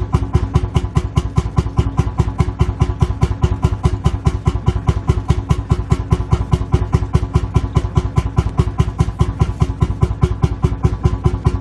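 Lanz Bulldog tractor's single-cylinder hot-bulb two-stroke engine idling, a steady even thump-thump of about five beats a second.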